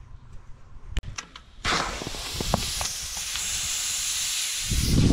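CO2 cartridge inflator hissing into a mountain bike tyre: a sudden start a little under two seconds in, then a steady hiss for about three seconds. A single click comes about a second in.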